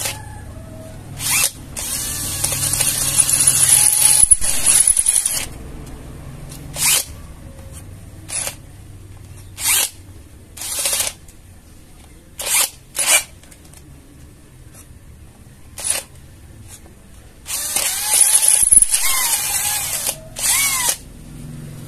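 Stock Kamolee 10 mm brushless cordless drill boring into steel with a 10 mm bit, running under load. The cutting noise comes in loud bursts: a long stretch of about three seconds early on, a string of short bursts, then another long stretch near the end, with a low steady hum between them.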